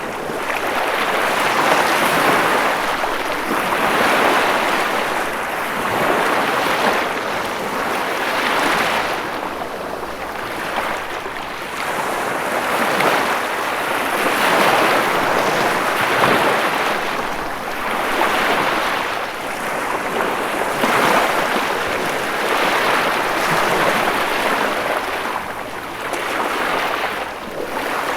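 Ocean waves breaking and washing on a shore, swelling and ebbing every two to three seconds in a continuous surf hiss.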